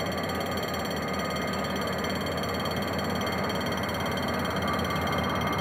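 GM GT22CW-2 diesel-electric locomotive's engine running under load as it hauls a passenger train away from a station, a steady rumbling drone that grows slowly louder as the locomotive approaches.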